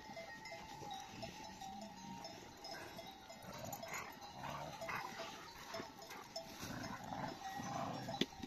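Faint, steady clinking of bells on a flock of livestock, with scattered low animal sounds in among it.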